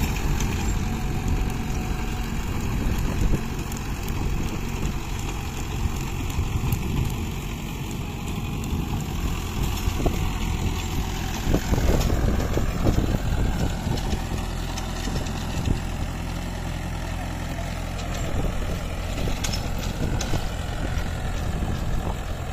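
Mahindra 475 DI SP Plus tractor's four-cylinder diesel engine running steadily under load while it pulls a 7-foot rotavator through the soil, with a few knocks and clatters about halfway through.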